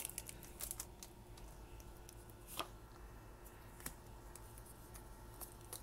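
Quiet handling of a freshly opened pack of Pokémon trading cards: a few scattered soft clicks and taps as the stack of cards is drawn from its foil wrapper and held in the hand.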